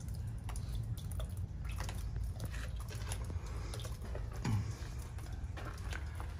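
Water dripping in scattered, irregular drips and clicks over a steady low rumble.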